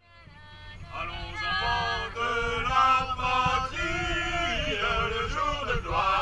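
Several voices, men among them, singing a song together in held notes, fading in over the first second. A low wind rumble on the microphone runs underneath.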